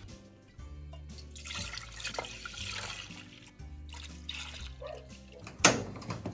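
Liquid being poured for a second or two, over background music with a steady bass line. Near the end there is a single sharp knock.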